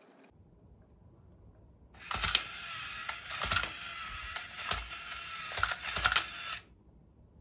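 Toy domino train's small electric motor and plastic gears running on low voltage from a bench power supply, with irregular sharp plastic clacks as its mechanism drops dominoes. It starts about two seconds in and cuts off suddenly near the end.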